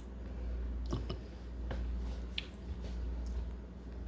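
Fork stirring a thick homemade cheese sauce in a bowl: a few light clicks and soft squelches over a steady low hum.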